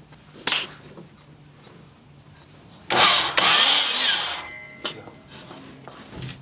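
DeWalt 12-inch sliding compound miter saw (DWS779) started and brought down through a 1x4 board, cutting for about a second and a half about three seconds in, then the blade winding down with a falling whine. A short knock about half a second in.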